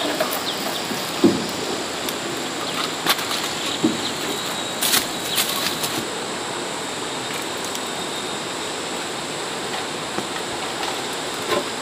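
Steady rushing outdoor background noise with a thin high steady whine, broken in the first half by a few sharp knocks and clatters of old wooden planks being shifted and handled.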